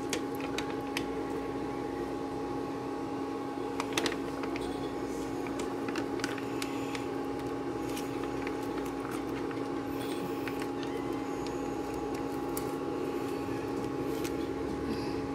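Steady hum from an induction cooktop, its fan and coil running under the pot, with scattered light clinks and taps from stirring the sauce in the metal pot.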